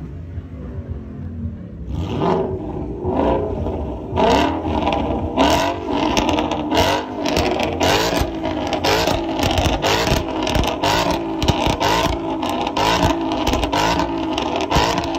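Ford Mustang exhaust idling, then from about two seconds in revved in quick repeated blips, each a sharp rise and fall in pitch, coming about two a second.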